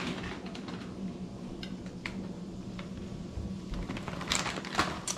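Chocolate chips being sprinkled by hand from a bag onto batter: a few light ticks and rustles, with several sharper clicks near the end, over a steady low hum.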